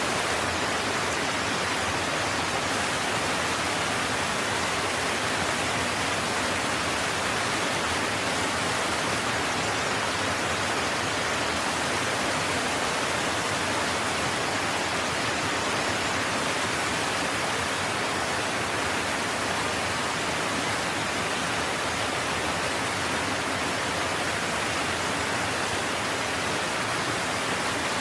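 Steady, even hissing noise like rushing water or static. It does not change at all, even through the picture's cuts between scenes.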